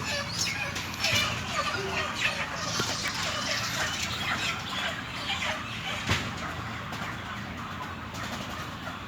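A flock of broiler chickens clucking, a dense chatter of many short calls over a steady low hum, with a single sharp knock about six seconds in.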